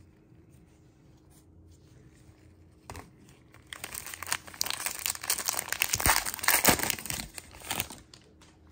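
Foil wrapper of a Panini Mosaic football card pack crinkling and tearing as it is ripped open, from about four seconds in until near the end. A single short tap comes just before, after a quiet stretch.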